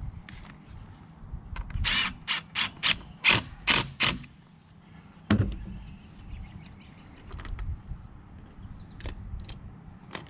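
A quick run of about eight sharp ratchet-like clicks, roughly three a second, followed about a second later by a single thump.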